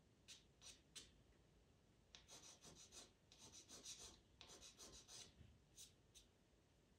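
Faint scratching of a pastel pencil drawing short strokes on Pastelmat paper: a few single strokes, then a quick run of about five or six strokes a second for some three seconds, then two more.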